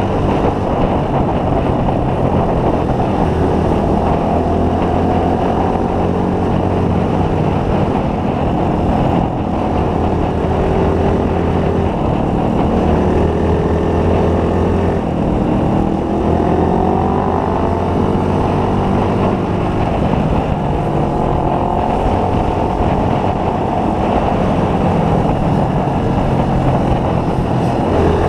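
Motorcycle engine running on the move under a steady rush of wind noise, its pitch rising and falling as the rider changes speed.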